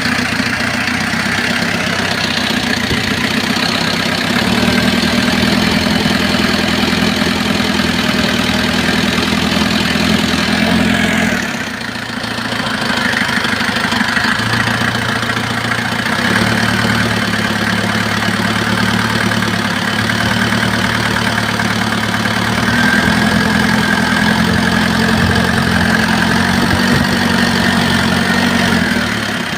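Kia JT diesel engine running after a top overhaul, mostly at a steady idle. Its speed shifts a few times, with a brief dip about halfway through before it picks back up.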